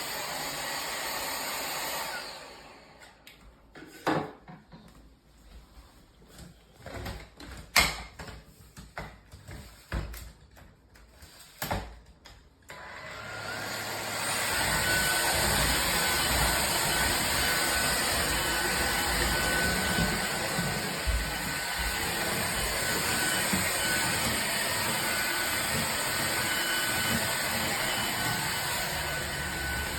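Powerffy N10 cordless stick vacuum running steadily. It stops about two seconds in, and for about ten seconds there are only scattered clicks and knocks. Then it starts again and runs steadily, with a faint high whistle in the sound.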